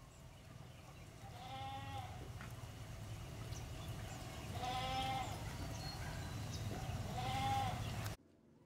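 An animal calling three times, a few seconds apart, each call under a second long and rising then falling in pitch, over a low steady background noise; the sound cuts off abruptly near the end.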